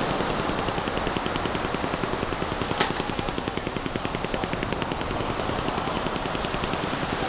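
An engine running close by with a rapid, even beat. A single sharp click about three seconds in.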